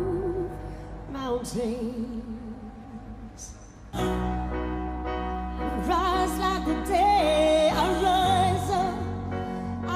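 Live band music with a voice singing long, wavering notes. The accompaniment thins out and drops back for a few seconds, then the full band with a deep bass comes in sharply about four seconds in.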